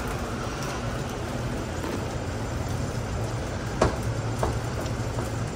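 Rain falling steadily on wet pavement, an even hiss, with one sharp tap of a drop about four seconds in.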